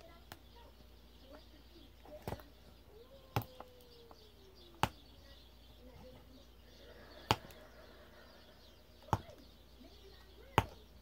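Small plastic slime container's lid clicking sharply as it is pried and worked open by hand: six loud single clicks, one every second and a half to two and a half seconds.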